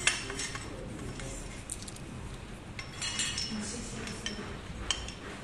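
Metal tubes and screw fittings of a pull-up station frame clinking and clicking as the parts are handled and fitted together: a sharp clack at the start, a cluster of clinks about three seconds in, and a single sharp click near the end.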